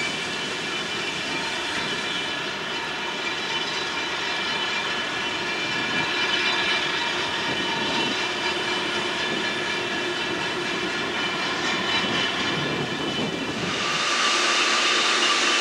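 Steady industrial noise of an ore dock loading a lake freighter: iron ore pellets running down the dock's chutes into the ship's hold, a continuous rushing sound with several steady whining tones over it. Near the end it gives way to a brighter, even hiss.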